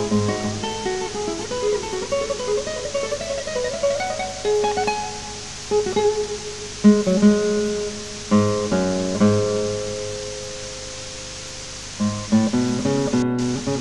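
Acoustic guitar music: a picked melody of single notes, with a few full chords struck later on.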